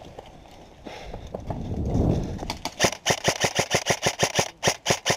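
Airsoft gun firing fully automatic: a rapid, even string of sharp shots, about seven a second, beginning halfway through with a brief break near the end before firing resumes.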